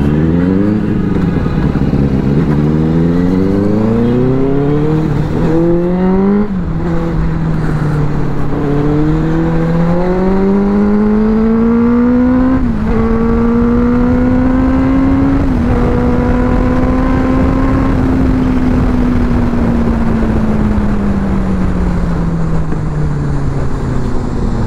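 Benelli sport motorcycle's engine, heard from the rider's seat, accelerating through the gears: the pitch climbs and drops back at each upshift, three times, then holds steady at cruising speed and falls away gradually as the rider eases off near the end. Wind and road noise run underneath.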